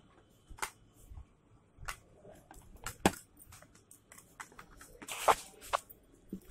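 Handling noise: scattered clicks, taps and crinkly rustles of clear plastic jewellery boxes and packets being moved about on a counter, with two sharper knocks about three and five seconds in.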